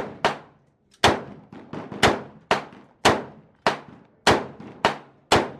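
Rapid string of gunshots, about two a second, each sharp crack trailing off in a short echo.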